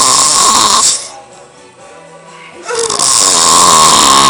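A man snoring loudly in his sleep: one snore trails off about a second in, and after a short pause a second long snore starts.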